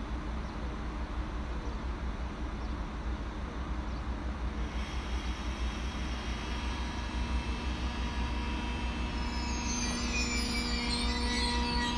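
ICE 3 high-speed electric train rolling slowly into the platform with a low rumble. From about halfway a hiss builds, and near the end high whining tones appear, some falling in pitch as it slows.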